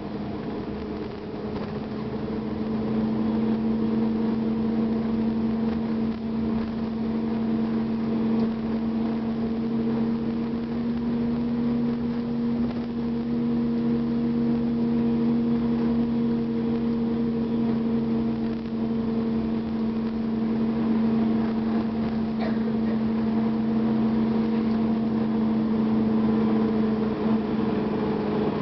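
Gillig Advantage transit bus's Cummins ISL diesel engine and driveline running steadily: a droning hum with a steady low tone that swells over the first few seconds, then holds even.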